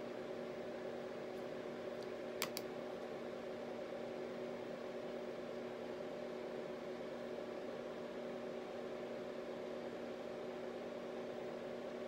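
Steady background hum with an even hiss, and two quick sharp clicks close together about two and a half seconds in.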